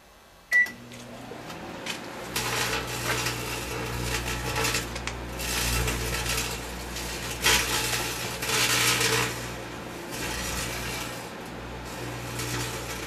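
Microwave oven keypad beep, then the oven running with a steady hum while a foot-long wire twist tie arcs inside it, crackling and buzzing in uneven bursts that start about two seconds in. The crackle is metal sparking in the microwave field.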